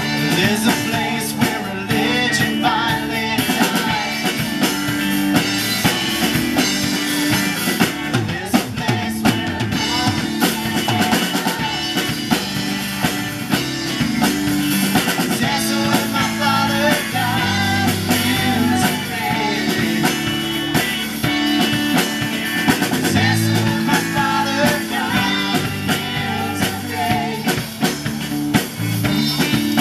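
Live worship band playing a rock-style song through a PA: drum kit, electric guitars and keyboard, with women singing the melody.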